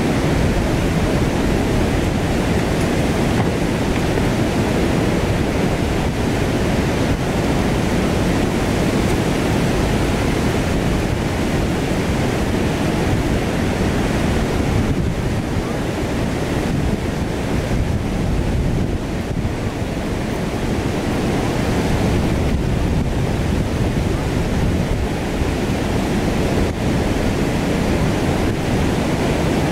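Steady rushing of river water pouring over waterfalls and rapids, with wind buffeting the microphone.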